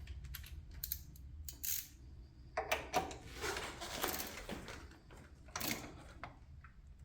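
Torque wrench ratcheting in quick sharp clicks as a frame slider bolt is tightened to 60 newton-metres, with a denser run of ratcheting about three seconds in.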